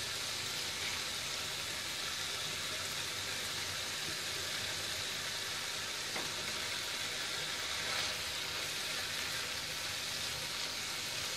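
Thick onion, tomato and yogurt masala gravy sizzling steadily in a frying pan, with a couple of faint soft knocks as the fried meatballs are set into it.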